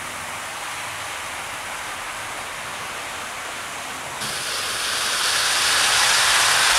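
00-gauge model trains running at speed on the track, a steady rolling rattle and hiss of wheels and motors. About four seconds in it is suddenly louder, swelling as a rake of coaches passes close by.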